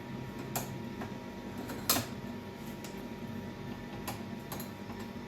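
A few scattered sharp clicks and knocks, the loudest about two seconds in, over a steady low hum, as tools and parts are handled on a snowblower being taken apart for an auger belt repair.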